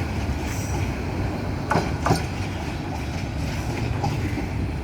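Train rolling along the track with a steady low rumble, and two sharp wheel clacks over the rail joints about two seconds in.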